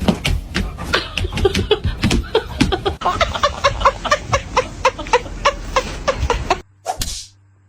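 A person laughing in a steady run of short pitched bursts, about three a second. Near the end it cuts off abruptly and a single sharp swish follows.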